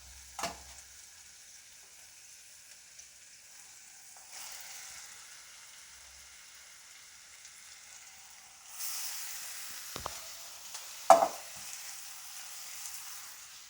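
Chicken frying in hot oil with onion, green chilli and ginger-garlic paste in a pan, sizzling as it is stirred. The sizzle grows louder about four seconds in and again near nine seconds. A few sharp knocks of the stirring spoon against the pan come late, the loudest about eleven seconds in.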